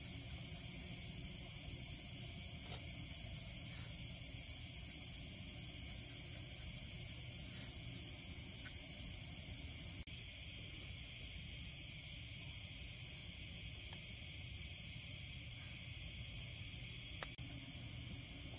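Night insects, crickets and the like, chirring in a steady high chorus over a low rumble. The level drops slightly about halfway through.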